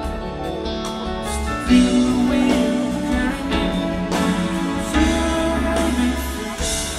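Live soft-rock band with a symphony orchestra playing an instrumental passage, guitar among the instruments, sustained chords moving from note to note.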